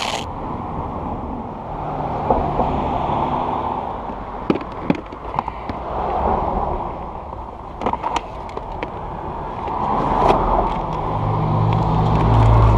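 Ocean surf washing onto the beach in swells every few seconds, with scattered clicks and, near the end, a heavy low rumble of wind on the microphone.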